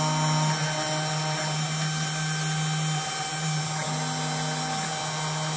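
Small hobby CNC router's spindle motor running with a steady whine while its 20-degree V-bit cuts a solder-stencil pattern into a Mylar sheet. A second, slightly higher tone joins in twice for about a second.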